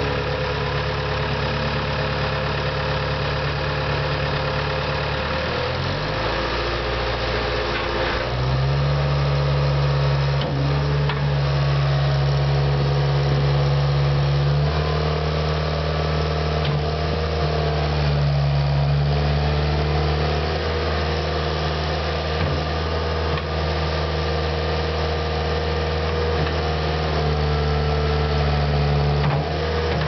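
Caterpillar 289C compact track loader's diesel engine running steadily. Its pitch steps up about six and eight seconds in, then rises and falls several times as the lift arms raise the bucket and lower it.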